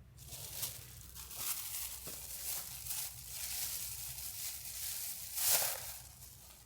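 Rustling and crinkling, as of a bag, wrapper or stuff sack being handled, in uneven swells with the loudest crinkle about five and a half seconds in.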